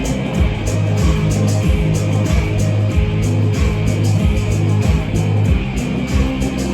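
Band playing an instrumental passage with guitar and bass guitar over a steady beat, no singing.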